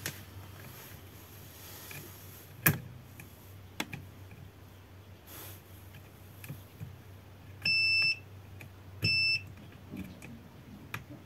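Digital multimeter beeping twice, two short steady high tones about a second apart, as its probes are held on the legs of a MOSFET on a TV power-supply board.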